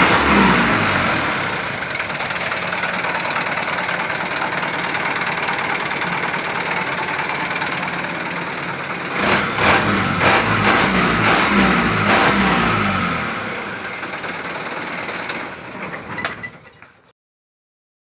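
Motor vehicle engine running, with a steady rushing noise and regular ticks about twice a second in stretches; the sound fades out and cuts off a second before the end.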